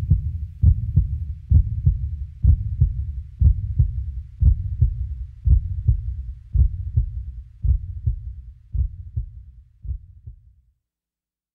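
Heartbeat sound effect: a double thump about once a second over a low hum, fading out near the end.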